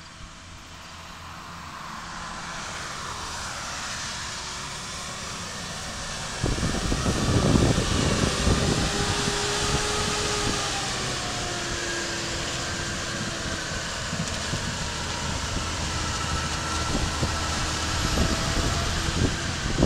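New Holland T7.315 tractor's six-cylinder diesel engine running as it drives up the road. It grows steadily louder as it approaches, becomes loud and close about six and a half seconds in, then holds steady as the tractor slows, with faint tones drifting lower.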